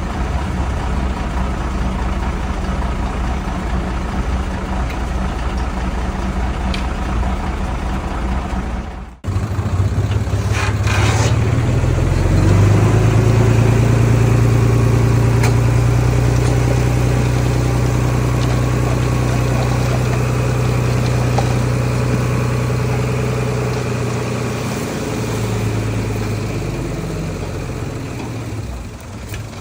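Heavy diesel engine of earthmoving machinery running steadily. After a brief break about nine seconds in, it revs up, holds high under load for about ten seconds, then drops back toward the end.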